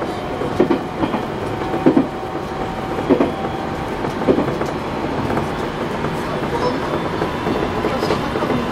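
Inside a 701-series electric commuter train running along the line: a steady running rumble with the wheels clacking over rail joints about once every second and a quarter. The clacks fade out about halfway through.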